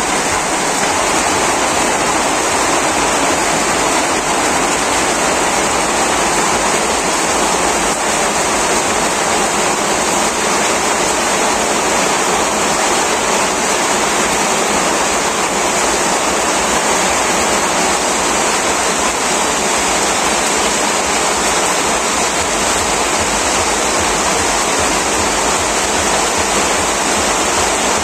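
Heavy monsoon rain falling steadily on corrugated tin roofs and a flooded yard, an even, unbroken downpour.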